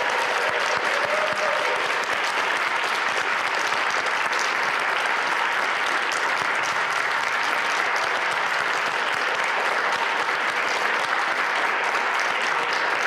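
Audience applauding: steady, dense clapping at an even level.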